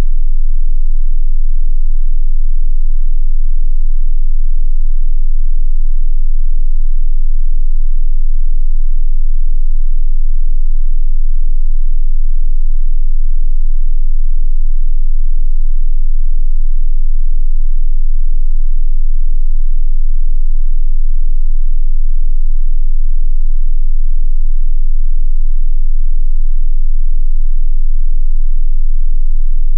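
A continuous, steady 18.98 Hz sine tone: an infrasound test tone just below the 20 Hz usual limit of human hearing, played loud.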